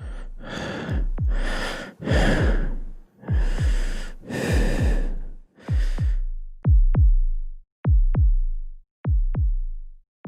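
Electronic intro music built on deep synthesized kick-drum thumps in pairs, about one pair a second, like a heartbeat. For the first six seconds each pair is joined by a loud swelling hiss, like a breath; after that the paired thumps go on alone.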